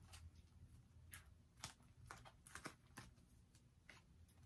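Faint, irregular small clicks and rustles of a Louis Vuitton Damier Ebene canvas agenda being handled and opened, against near silence.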